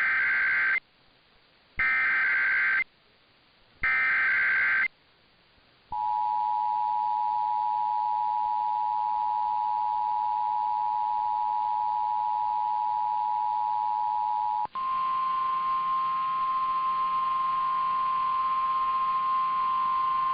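Emergency Alert System signalling: three one-second bursts of screechy SAME digital data, then after a short pause the steady two-tone EAS attention signal. About three quarters of the way through it switches abruptly to a single buzzier steady tone, typical of the 1050 Hz NOAA Weather Radio alert tone.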